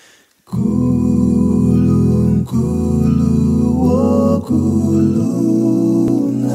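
Music begins about half a second in: slow, sustained chords of voices in harmony, a cappella style, changing chord every second or so.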